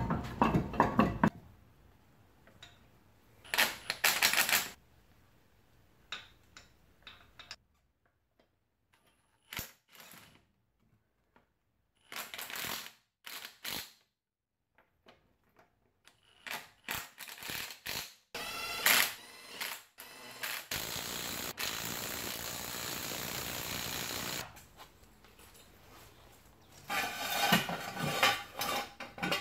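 Cordless impact wrench running lug nuts down onto a car wheel in a series of short bursts, with clinks of the nuts and tools between them and a quiet stretch partway through.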